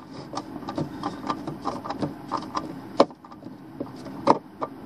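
Hand screwdriver turning and tightening the wire terminal screws of a surge protector: a string of short light clicks about three a second, with louder clicks about three seconds in and again just past four seconds in.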